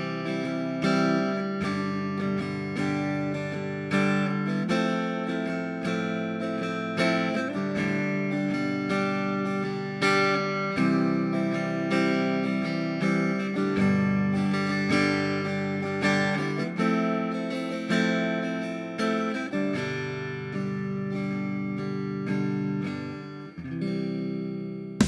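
A guitar playing strummed chords that are let ring, with a fresh strum every second or two.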